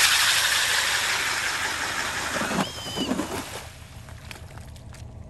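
Nils 8-inch ice auger head driven by a Milwaukee M18 hammer drill through a Clam Plate gear reduction, on the drill's second speed, boring through lake ice: a loud hissing grind of the blades cutting and throwing ice chips. About two and a half seconds in the drill motor's whine rises briefly, then the auger stops just before four seconds.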